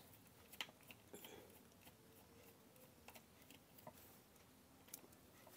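Near silence with a few faint, scattered clicks of a screwdriver working the small screws on the end cover of an electric sewing machine motor.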